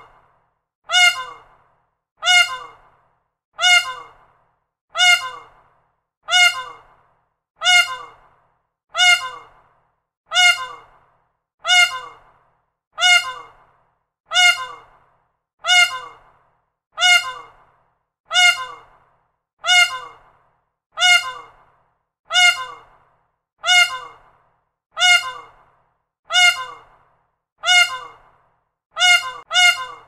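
Peacock calling: one short, loud, harsh cry repeated over and over at an even pace, about one every second and a third, each call starting sharply and fading quickly.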